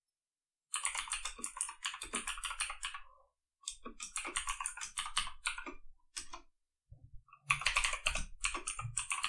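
Fast typing on a computer keyboard: three runs of rapid keystrokes, starting under a second in, with short pauses between them.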